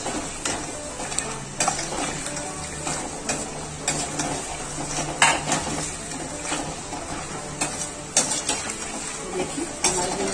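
Peanuts frying in hot oil in a stainless steel kadhai, a steady sizzle, with a perforated steel skimmer clinking and scraping against the pan a few times as the fried peanuts are scooped out.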